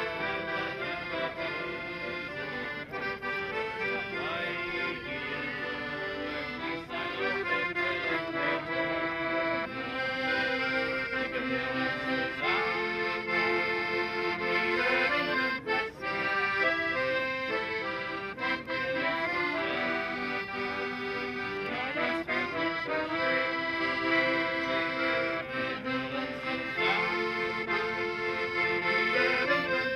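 Piano accordion music: a lively tune with sustained chords underneath, played at a steady volume.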